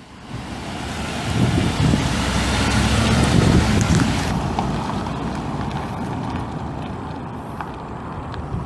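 2012 Ford F-150's 5.0L V8 gas engine running, growing louder over the first three or four seconds, then settling to a steadier, quieter run.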